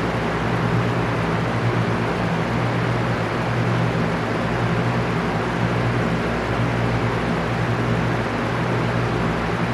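Electric fan running steadily: an even rush of moving air over a constant low hum.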